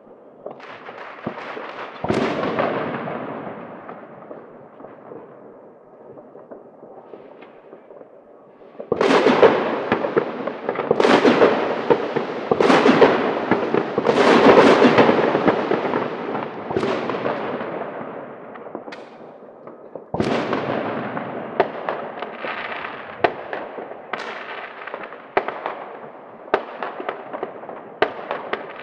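Private New Year's Eve fireworks and firecrackers going off in city streets, each loud bang trailing off in a long echo. A single bang comes about two seconds in, a dense run of bangs follows from about nine seconds in, and rapid sharp crackling pops come near the end.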